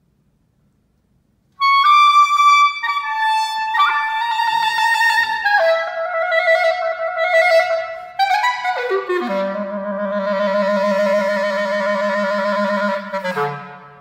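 Solo clarinet. After a short silence it enters on a high note and steps down through a descending phrase, then makes a quick run down to a low note held for about four seconds. It closes the movement on a slightly lower note that dies away in the hall's reverberation.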